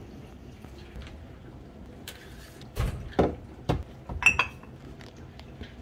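Glass liquor bottles knocking and clinking as they are set onto a cabinet shelf among other bottles: a few dull knocks from about three seconds in, then a ringing glass clink a little after four seconds.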